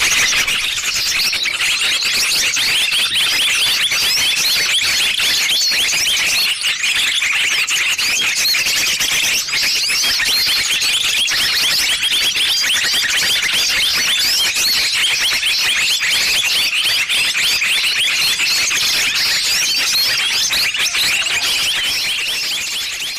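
Small-bird luring call (pikat burcil): a loud, dense, unbroken mass of many quick high chirps and twitters layered together, starting to fade near the end.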